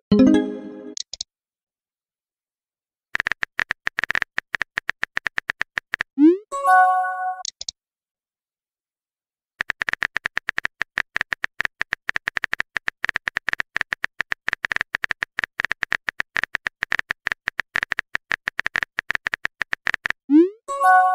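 Text-message app sound effects: two runs of fast, even keyboard typing clicks, each followed by a rising pop and a short chime as a message appears. Another chime sounds right at the start.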